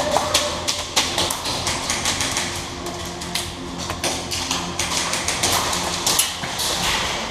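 Airsoft guns firing in a close-quarters game: irregular sharp taps and clicks of single shots and BBs striking, mixed with footsteps.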